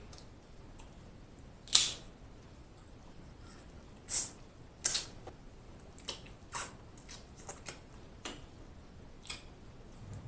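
Snow crab leg shells cracked and snapped apart by hand, a string of sharp crackling snaps with the loudest about two seconds in. Between the snaps come mouth sounds of eating the crab meat.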